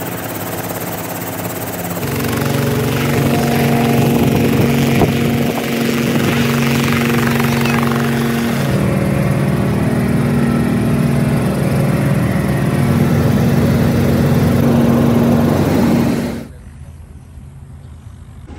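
Robinson R44 helicopter's piston engine and rotor running steadily, with a constant drone and whirring noise heard through a series of cuts. About three-quarters of the way through the sound drops off sharply to a much fainter background.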